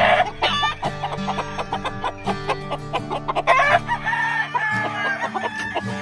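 Gamefowl roosters calling: a short loud call at the start, then a long crow beginning about three and a half seconds in and held nearly to the end. Background music with a steady beat plays underneath.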